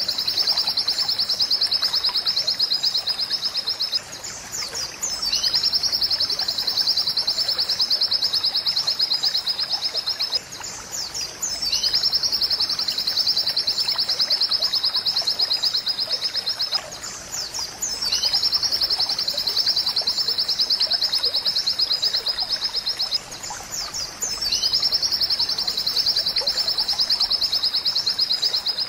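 Pleci (white-eye) song: long, high, rapid trills of about five seconds each, repeating about every six seconds, with a brief falling note in each short pause.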